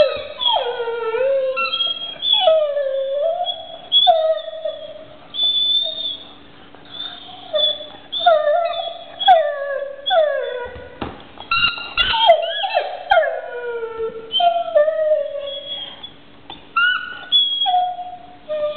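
Dog howling and whining with a toy in its mouth: a string of wavering calls, many falling in pitch, each about a second long with short breaks between them.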